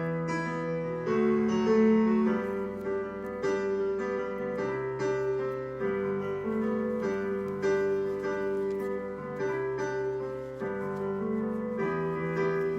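Background piano music: a steady run of sustained notes.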